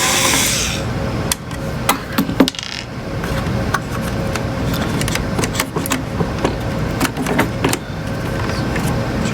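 Scattered light clicks and metallic clinks of screws and metal parts being handled while an oscilloscope is taken apart, over a steady low hum.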